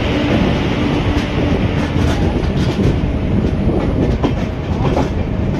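Indian Railways passenger train rolling into a station, heard from an open coach doorway: a steady rumble of wheels on rail, with a few sharp clicks as the wheels pass over rail joints.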